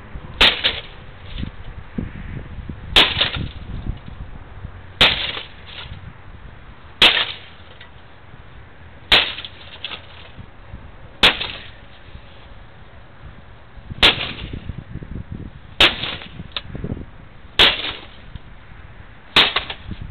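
A gun fired about ten times at a steady pace, roughly one shot every two seconds, each a sharp crack with a short tail, as the computer tower is shot up.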